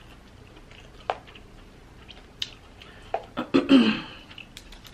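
Scattered small wet mouth clicks of eating, then about three and a half seconds in a louder run of cracking and crunching as a cooked king crab leg shell is pulled apart by hand.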